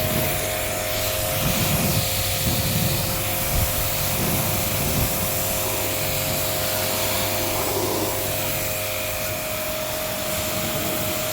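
A steady motor running with a constant whining tone and a loud hiss of air or spray, with a few rougher swells in the first few seconds.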